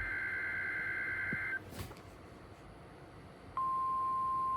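Emergency Alert System SAME header: a warbling data burst lasting about a second and a half. After a short pause, NOAA Weather Radio's steady single-pitch 1050 Hz warning alarm tone starts about three and a half seconds in, signalling a severe thunderstorm warning.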